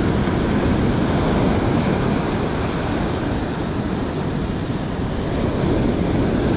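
Surf breaking and washing up a sandy beach, a steady rushing noise, with wind buffeting the microphone.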